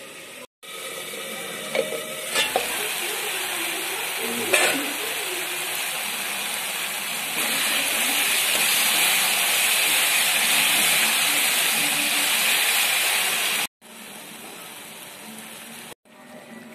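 Food sizzling as it fries in a pan, with a few sharp knocks from a stirring spoon in the first few seconds. The sizzle grows louder about halfway through, then drops abruptly to a quieter hiss near the end.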